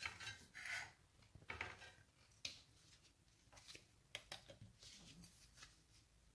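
Faint scattered clicks and scrapes of small hand tools, metal tweezers and a pry tool, touching an opened smartphone's frame and battery.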